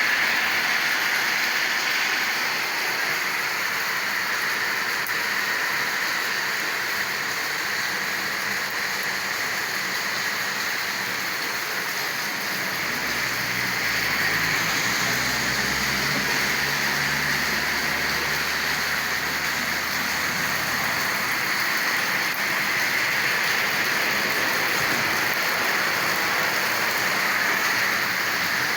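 Steady rain falling, a constant hiss. About halfway through, a low rumble joins it for several seconds, then fades out.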